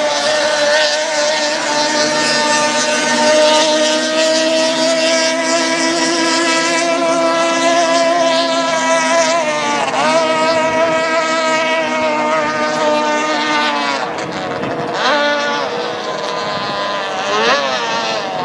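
Classic racing motorboat's engine running with a steady, buzzing note. Its pitch dips and climbs again about ten seconds in, and twice more briefly near the end, as the throttle is eased and opened.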